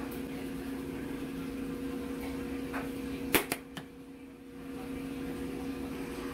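Steady electrical hum of a kitchen appliance, with two sharp clicks about three and a half seconds in.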